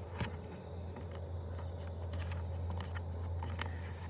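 Faint clicks and taps of hands pressing and lining up a plastic footwell trim cover, over a steady low hum.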